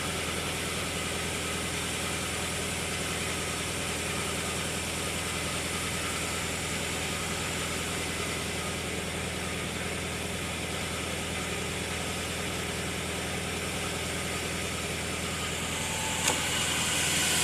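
Steady drone of an engine or motor running at an even speed, with a small click near the end.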